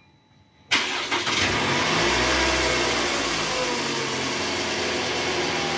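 Toyota Vellfire's 2AZ-FE 2.4-litre four-cylinder engine starting about a second in: a brief crank, it catches and flares up, then settles to a steady idle. This is the first start after a new balancer shaft was fitted.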